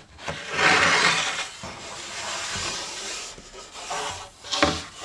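Wood being handled: a scraping, rubbing sound for a few seconds, then a few knocks.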